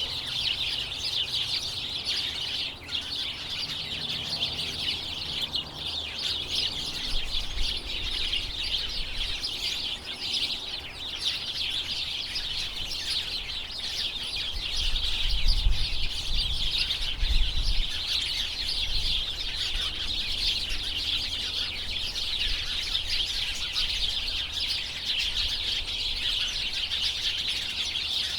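A large flock of small birds chirping all at once in a dense, continuous chatter, with low rumbles coming and going underneath, strongest about halfway through.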